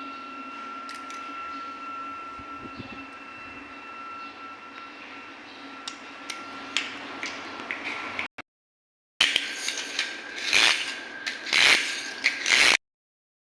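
A small mechanism with a steady high whine for about eight seconds, then, after a short cut to silence, a run of loud clicks and scrapes.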